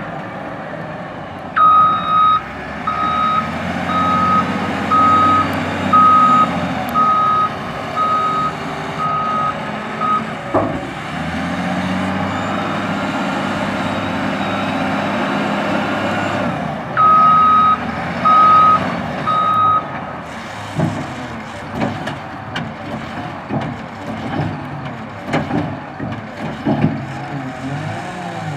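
Caterpillar 950M wheel loader's diesel engine running while its reversing alarm beeps about once a second, first for about eight seconds and then three more times as it backs up again. Sharp knocks and clanks come in the last third.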